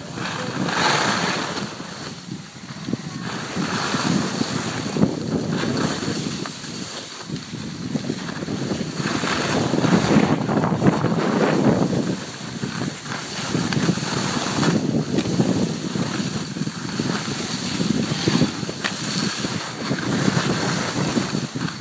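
Wind rushing over the microphone of a phone carried down a ski slope, mixed with skis sliding and scraping on snow; the rush swells and eases every few seconds.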